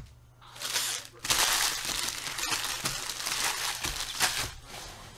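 Foil wrappers of trading card packs crinkling as hands handle them, a dense crackle that starts about half a second in and fades near the end.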